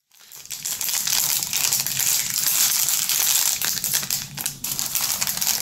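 Plastic candy wrappers crinkling as they are handled: an irregular rustling crackle that starts a moment in and keeps going with hardly a break.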